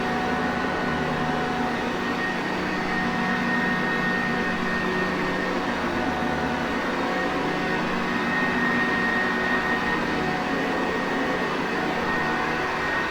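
Sanitaire Perfect vacuum cleaner motor running steadily: an even rushing noise with a constant whine and hum under it.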